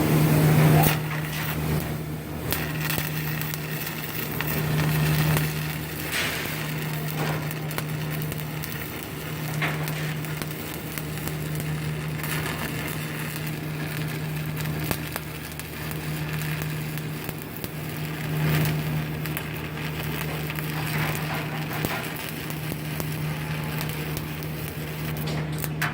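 Stick (arc) welding: the electrode's arc crackling and sizzling steadily over a steady low hum from the welding machine. Near the end the crackle dies away as the electrode sticks to the metal.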